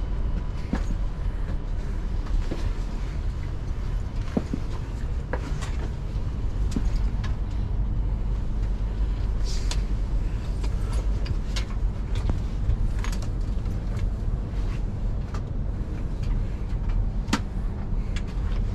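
Steady low hum inside a train carriage, with scattered clicks and knocks as passengers stow bags in the overhead luggage racks.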